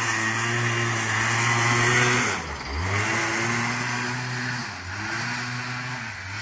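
Air-cooled two-stroke Piaggio SKR scooter engine with a 172 cc Malossi kit, completely untuned, driving a home-built racing lawn tractor at high revs. About two and a half seconds in the revs drop sharply and climb straight back, with a smaller dip near five seconds.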